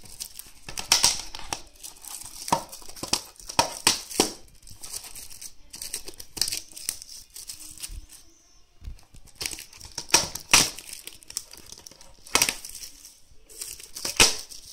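Plastic shrink wrap being cut and peeled off a Blu-ray case, crinkling and tearing in irregular bursts, with a short lull about eight seconds in.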